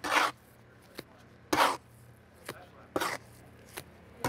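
Trowel chopping and scraping through haired lime plaster on a plywood board as the hair is worked into the mix. Three sharp scraping strokes about a second and a half apart, with light clicks between them.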